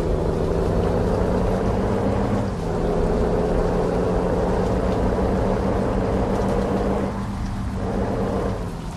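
Heavy truck's diesel engine running steadily under load, its note dipping briefly twice.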